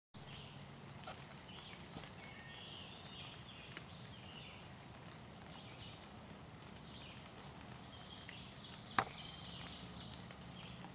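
Birds singing in spring woodland, in two stretches of song, with a single sharp click or snap about nine seconds in.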